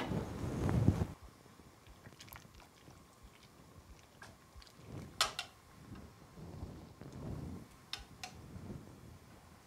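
A few scattered light knocks and clicks, with low rustling of things being handled in a small room; the loudest knock comes right at the start.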